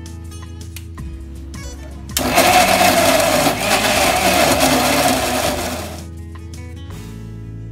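Stainless-steel-jar electric mixer grinder switched on and running at full speed, grinding raw chicken and spices into a paste. It starts abruptly about two seconds in and winds down after about four seconds. Light acoustic guitar music plays before and after it.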